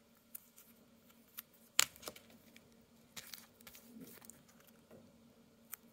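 Paper and card being handled on a table: scattered rustles and sharp taps, the loudest a single sharp tap nearly two seconds in, over a faint steady low hum.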